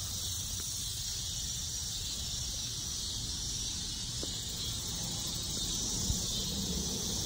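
Steady outdoor background: an even high hiss over a low rumble, with one faint tap about six seconds in.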